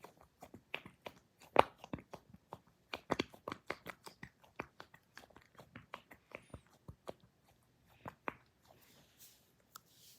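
Rapid, irregular crackling and clicking, many sharp little snaps a second, with one louder snap about one and a half seconds in.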